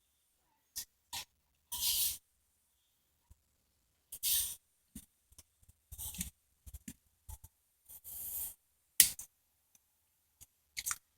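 Short, scattered scraping and rubbing noises from parts and hand tools being handled during a cylinder-head rebuild, with a sharp click about nine seconds in.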